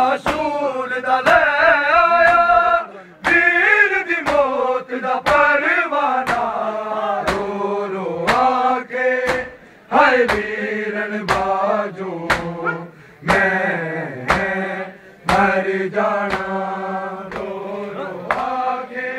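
Men chanting a Punjabi noha, a Shia mourning lament, in long held melodic lines. Sharp chest-beating (matam) strikes from the crowd keep a steady beat about once a second.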